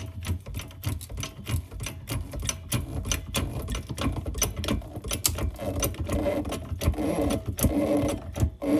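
A jack being worked to lift the rear of an ATV: a fast, uneven run of mechanical clicks, with a creaking squeal building over the last few seconds as the load comes on.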